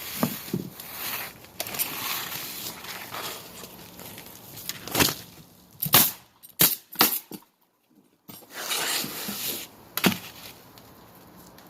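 Roofing work on asphalt shingles: a rustling, scraping noise, then a few sharp knocks about five to seven seconds in and another near the end.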